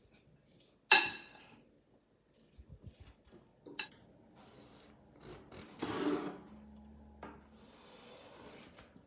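A metal spoon strikes a glass bowl with a sharp, ringing clink about a second in. A knife then cuts through an eggplant and knocks on a wooden cutting board. Near the end a vegetable peeler scrapes a long thin slice off the eggplant.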